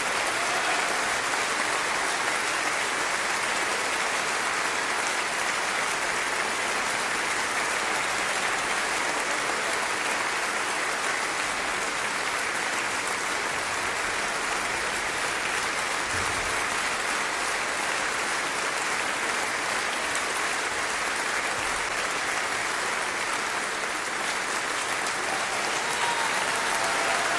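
Large theatre audience applauding steadily, dense clapping that holds an even level throughout.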